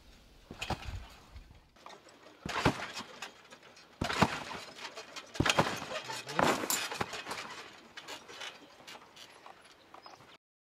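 Thuds of a person landing and bouncing on an outdoor trampoline mat while doing flips, irregularly spaced, with the loudest landings in the middle and weaker ones near the end.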